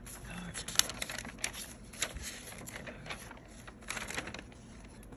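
Pages of a paper notebook being turned by hand: paper rustling with a run of sharp crackles and flaps, the loudest a little under a second in.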